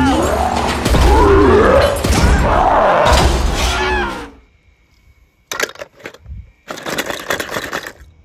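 Animated cartoon-race soundtrack: crashing and breaking impacts mixed with gliding engine-like tones, loud, cutting off suddenly about four seconds in. After a short quiet, two brief bursts of rustling noise follow.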